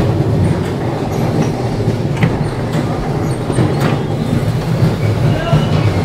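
Electric bumper car running: a loud, steady low rumble from its motor and wheels, with a few faint short clicks and squeaks.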